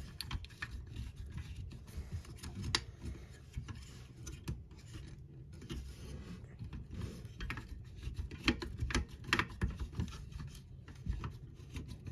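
Small screws being driven by hand into a plastic model car chassis: scattered light clicks and scraping of the screwdriver and plastic parts, with a busier run of louder clicks about eight seconds in.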